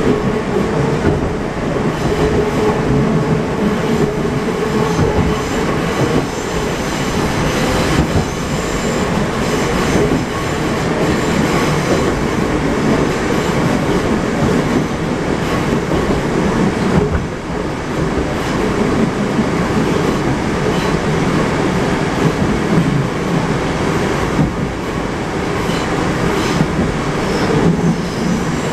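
Inside a moving 81-765.2 'Moskva' metro car: the steady running noise of the train's wheels on the rails and its running gear. A held hum sounds through the first several seconds.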